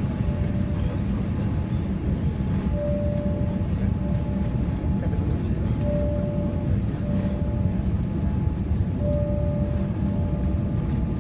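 Steady low rumble of a Boeing 787-8 Dreamliner's engines and airflow heard inside the cabin during the descent for landing. A faint short tone recurs about every three seconds over it.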